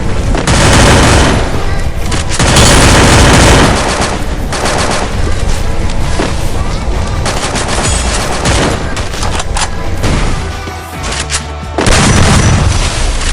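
Video game gunfire: repeated bursts of automatic rifle fire, loudest about half a second in, from about two and a half to four seconds in, and again near the end, over background music.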